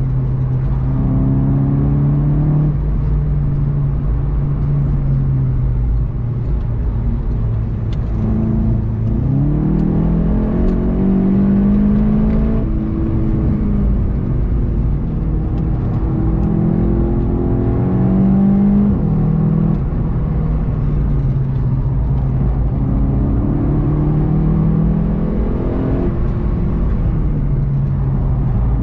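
VW Golf 7 GTI TCR's turbocharged 2.0-litre four-cylinder engine heard from inside the cabin, its pitch climbing under acceleration and dropping sharply at upshifts, about halfway through and again a few seconds later, over steady road noise.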